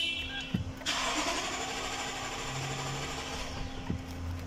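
Lexus LX570's V8 engine being started about a second in, catching and then settling as it runs, on a newly replaced fuel pump.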